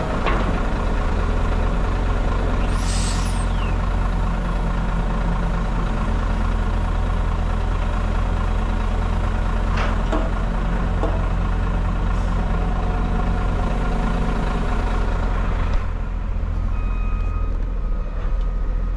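Heavy diesel truck and container-handler engines running steadily, with a short hiss of released air about three seconds in and a few knocks.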